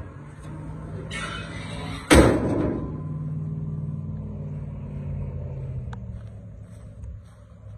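The steel hood of a 1966 Cadillac Coupe DeVille swung down and slammed shut about two seconds in: a brief rush as it drops, then one loud bang that rings out for a moment, over a low steady hum.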